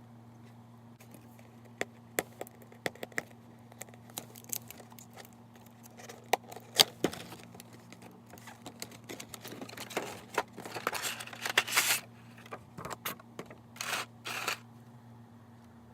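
Hands unpacking a boxed Nendoroid figure: scattered clicks and taps of plastic packaging and parts, with a longer stretch of crinkling and rustling about ten seconds in. A steady low hum runs underneath.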